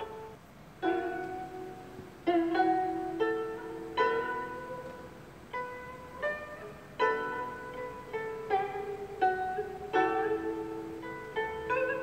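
Background music: a slow melody of plucked string notes, each struck sharply and left to ring and fade, with a brief pause just after the start.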